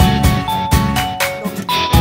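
Background music with a steady beat and a bright melody.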